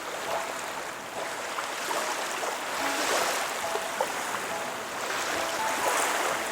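A moonie sleep toy playing one of its built-in soothing sounds: a steady rushing-water track, like a flowing stream, with faint soft notes scattered through it.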